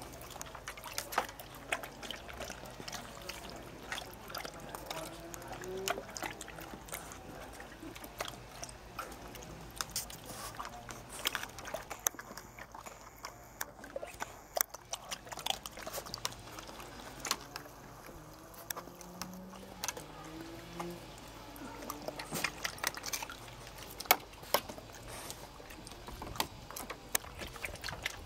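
Water splashing and sloshing in a shallow plastic paddling pool as dogs wade, paw at it and plunge their muzzles in to pick treats off the bottom, with many short sharp splashes and snaps throughout.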